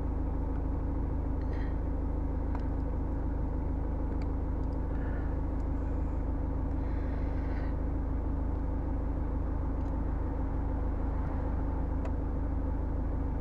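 Steady low hum and rumble inside a car's cabin, with a few faint clicks.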